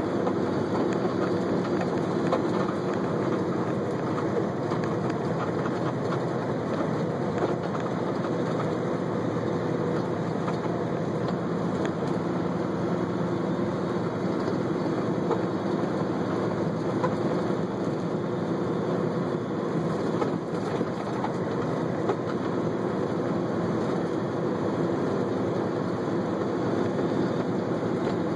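Steady road and engine noise of a car driving at highway speed, heard from inside the cabin through a phone on the dashboard.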